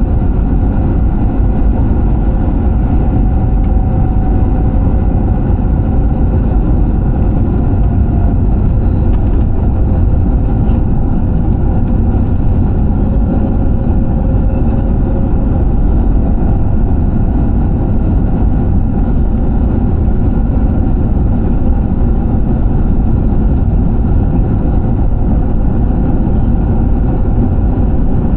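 Steady jet engine and airflow noise of an airliner heard inside the passenger cabin: a loud, even rumble with a few faint steady tones above it.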